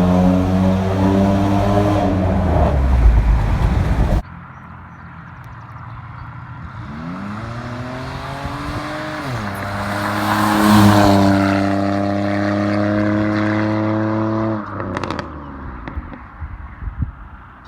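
Straight-piped 2005 Pontiac G6 exhaust: a loud steady run under power that cuts off suddenly about four seconds in, then the engine revving up, dipping briefly and held high before it drops away, followed by a scatter of sharp pops.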